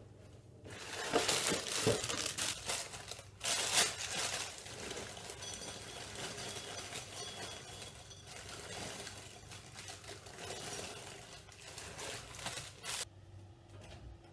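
Plastic cereal bag crinkling and dry Havrefras oat cereal pouring and rattling into a bowl, in a long rustling run that stops abruptly about thirteen seconds in.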